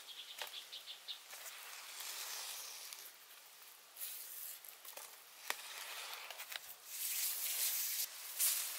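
Quiet forest ambience with a short run of high chirps in the first second, a few soft knocks from bamboo being handled, and a louder hissing scrape near the end.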